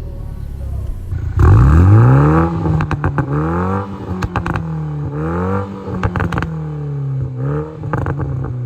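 Turbocharged 2.0-litre four-cylinder of a GR Supra running through a newly fitted FI Valvetronic aftermarket exhaust: it idles, is revved hard about a second and a half in, then blipped several more times. Sharp cracks come between the revs.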